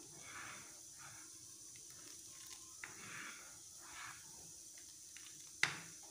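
A spoon stirring thickened chicken soup in a steel pan: a soft swish about once a second, with one sharp clink of the spoon against the pan near the end.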